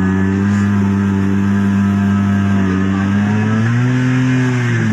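A small river boat's engine running steadily under way, then speeding up about three and a half seconds in and easing back near the end.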